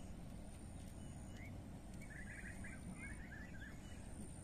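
Faint outdoor ambience: a low wind rumble on the microphone, with a short run of small bird chirps about two seconds in.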